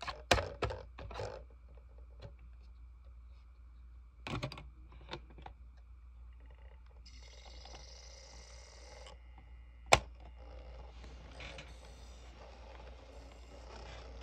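Clicks and rattles of a DVD disc and a portable DVD player being handled, with one sharp snap about ten seconds in. A faint steady whir follows as the player loads the disc.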